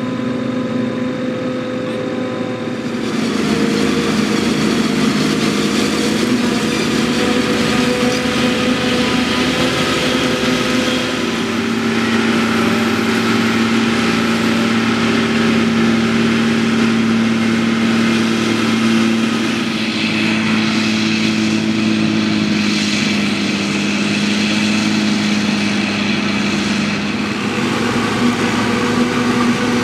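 Heavy diesel machinery of a maize harvest running steadily: a John Deere 6850 forage harvester chopping standing maize, with a Case tractor pulling a silage wagon alongside. The sound steps up louder and brighter about three seconds in, then holds at a steady drone.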